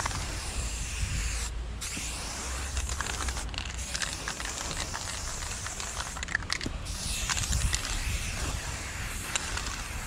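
Aerosol spray-paint can hissing in long continuous bursts, with a few short breaks between strokes.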